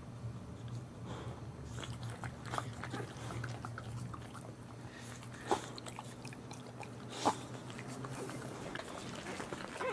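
Boxer mother licking and nuzzling her newborn puppies: soft wet licking and mouth clicks, with two short sharp squeaks, one about five and a half seconds in and one about seven seconds in. A steady low hum runs underneath.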